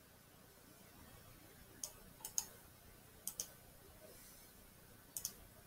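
Computer mouse clicking about seven times, several in quick pairs, as text is selected and a browser tab is clicked.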